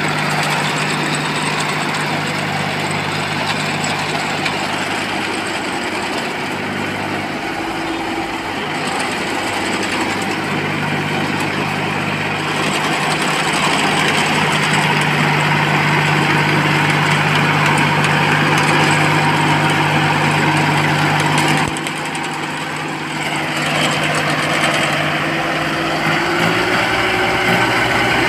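Engine of a homemade tracked crop-spraying machine running steadily. It dips in loudness for a couple of seconds about three-quarters of the way through, and its pitch rises slightly near the end.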